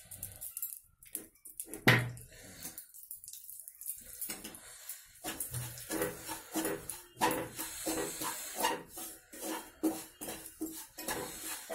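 Wooden spatula scraping and knocking against a frying pan as ground moong dal is stirred and roasted in ghee. One sharp knock comes about two seconds in, then quick, steady scraping strokes from about five seconds in.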